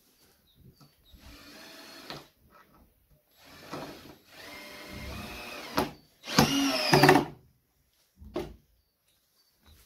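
Cordless drill/driver driving screws into a wooden tabletop: the motor whines in three runs, the last the loudest and shifting in pitch, then a short final burst.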